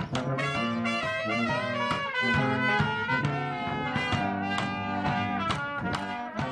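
Small brass band playing a tune in harmony, higher brass carrying the melody over a low brass bass line.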